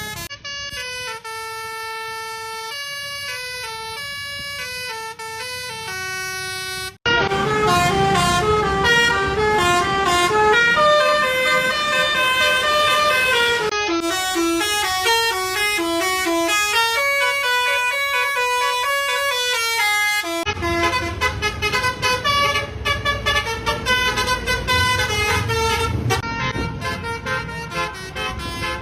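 Indonesian 'telolet' musical bus horns (basuri multi-tone horns) playing quick stepped melodies. It is one horn clip after another, with abrupt changes to a louder horn about seven seconds in and to another about twenty seconds in.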